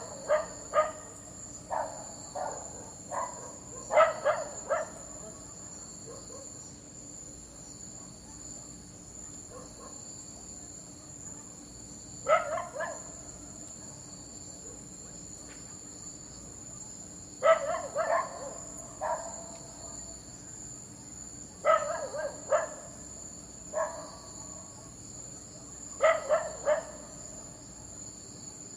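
A dog barking in separate groups of two to four barks, several seconds apart, over a steady high-pitched insect buzz like crickets.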